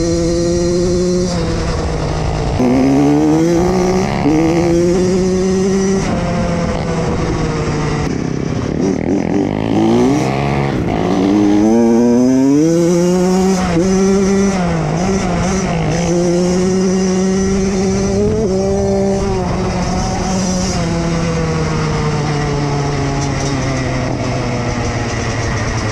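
Koshine pit bike's engine heard from the rider's seat, revving up through the gears and dropping back between shifts, with one long climb in pitch about halfway through. Near the end it settles into a steady note that slowly falls as the bike eases off.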